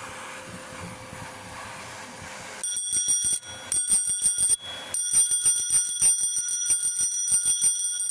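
Bicycle bell rung in a rapid trill, starting about two and a half seconds in, with two short pauses, after a soft stretch of rustle and wind.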